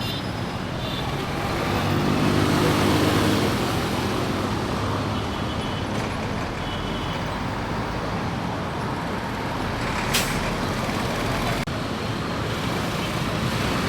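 Road traffic noise, with a motor vehicle's engine passing louder about two to three seconds in and a short sharp click or hiss about ten seconds in.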